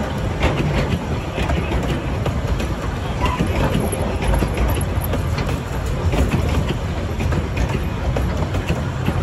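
A narrow-gauge train rolling on the rails: a steady low rumble with scattered clicks and knocks from the wheels and cars.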